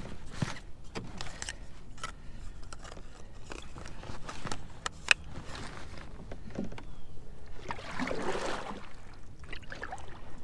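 Small clicks and knocks around a canoe afloat on calm water, with light sloshing and dripping; a sharper click about five seconds in and a louder rustling swish about eight seconds in.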